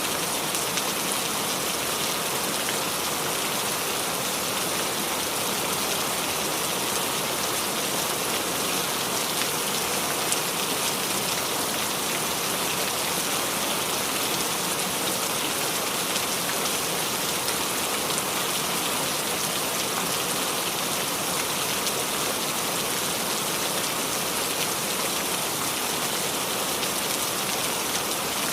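Steady rain falling and dripping on the leaves of a small tree, a dense even patter of drops.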